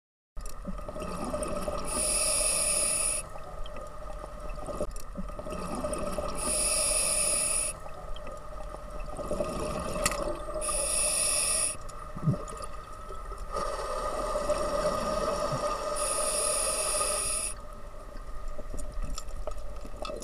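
Underwater sound with a steady hum and four hissing breaths through a scuba regulator, about one every four to five seconds.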